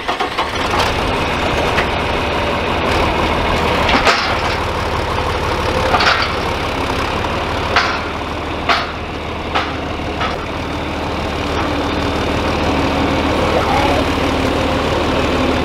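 John Deere farm tractor engine running steadily as the tractor drives slowly up, with a low even throb. Several sharp clanks are heard between about four and ten seconds in.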